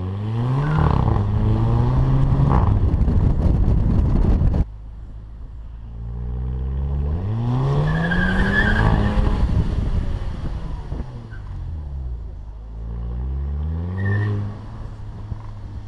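Volkswagen Beetle's turbocharged 2.0 TSI four-cylinder engine pulling hard through DSG gearbox upshifts, with the exhaust 'fart' on the shifts: the revs climb and drop three times. The loudest pull, full of crackle, cuts off suddenly about four and a half seconds in.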